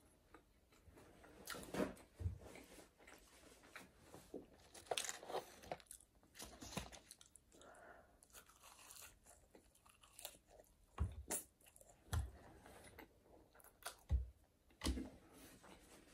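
Chewing and biting into a McDonald's Quarter Pounder with cheese: irregular mouth sounds with soft crunches, and a handful of louder bites at uneven intervals.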